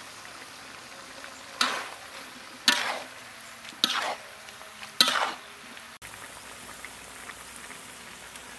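A vegetable and pork stir-fry sizzling in a wok, with four loud, short scraping strokes as it is stirred and tossed in the pan between about one and a half and five seconds in; after that, a steady sizzle.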